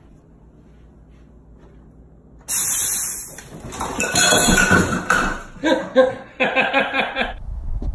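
A sudden crash and clatter of things, with clinking glass, being knocked over on a kitchen counter about two and a half seconds in, followed by a person's raised voice crying out.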